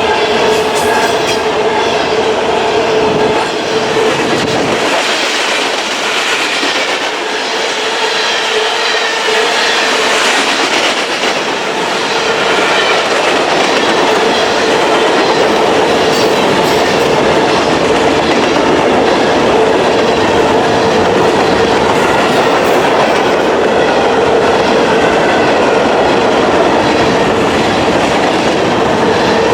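Freight cars of a manifest train rolling past, wheels clattering over the rail joints in a continuous clickety-clack, with a steady tone underneath; the low rumble thins for a few seconds early on, then the passing runs on evenly.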